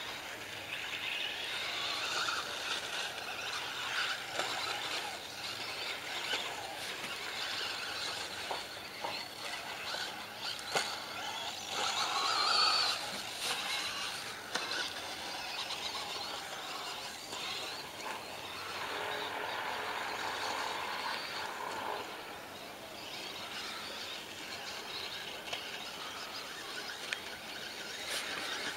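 Radio-controlled car's small electric motor and gears whining, the pitch shifting up and down as it speeds up and slows, with scattered clicks and knocks.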